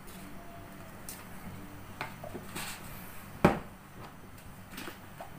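Kitchen handling sounds: a few light clicks and one sharp knock about three and a half seconds in.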